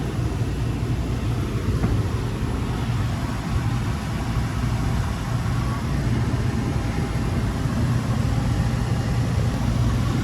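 Commercial refrigeration condensing unit running steadily, its compressor and condenser fan giving a constant low hum with a whooshing fan noise over it, as the newly charged system settles under load.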